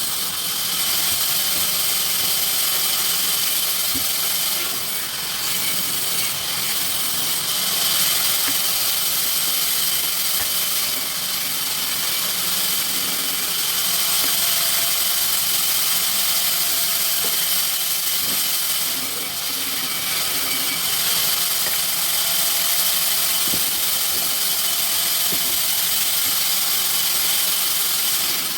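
Sawmill saw running steadily: a continuous loud, high-pitched hiss with a faint steady whine.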